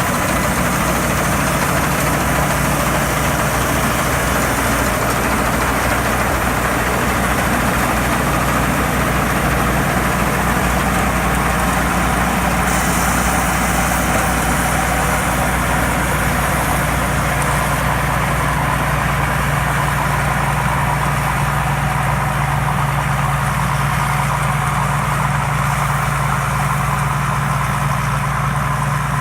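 Thai Seng Yont rice combine harvester running steadily at work, cutting lodged rice. A constant engine drone mixed with the machine's steady mechanical hum.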